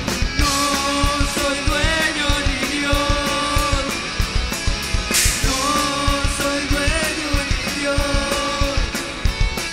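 Rock band playing live: electric guitars, bass guitar and drum kit, with a melody in long held notes over a steady drum beat. A cymbal crashes about five seconds in.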